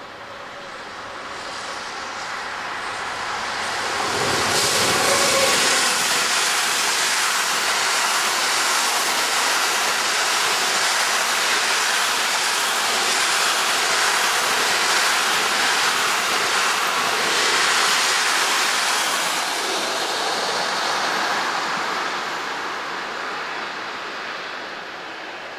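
Freight train of container and tank wagons passing at speed: a steady rushing rumble of wheels on rail. It swells as the locomotive goes by about four seconds in, holds while the wagons pass, and fades away near the end.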